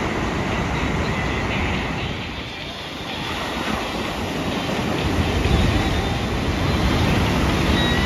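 Ocean surf: a steady rushing roar of breaking waves, louder in the second half, with wind rumbling on the microphone.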